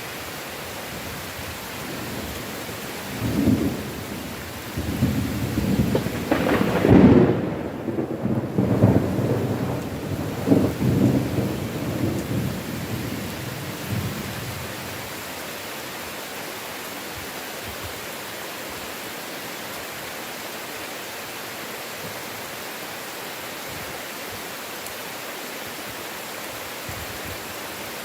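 Steady heavy rain hissing throughout, with a long roll of thunder that builds a few seconds in, rumbles on in several swells, loudest about seven seconds in, and dies away about halfway through.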